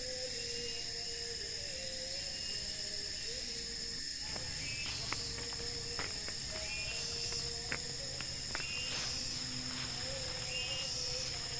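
Steady chorus of night insects in a tropical forest, with short repeated chirps and scattered sharp clicks starting about four seconds in.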